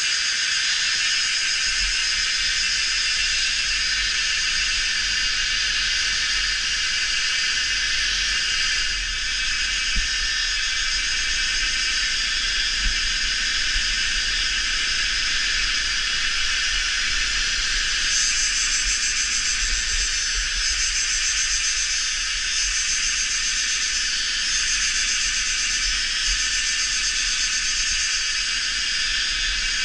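Cicadas and other insects calling in a dense, steady, high-pitched chorus, with a pulsing shimmer in the highest part of the sound.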